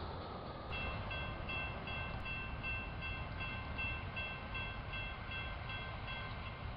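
Railroad crossing warning bell ringing, a high metallic ding repeating about two to three times a second over a steady ringing tone. It starts about a second in and stops shortly before the end.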